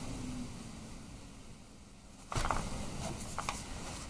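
Quiet handling noise from crafting: two short bursts of soft clicks and rustles, the first about two and a half seconds in and a smaller one about a second later.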